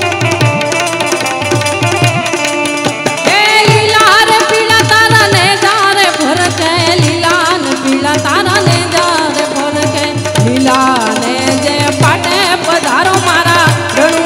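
A woman sings a Gujarati folk song with harmonium, over a steady hand-drum beat and hand percussion. Held harmonium chords and the drum play alone at first, and her ornamented singing comes in about three seconds in.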